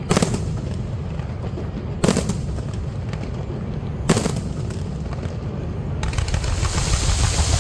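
Fireworks display: three loud bangs about two seconds apart over a steady low rumble, then a dense crackling sets in about six seconds in.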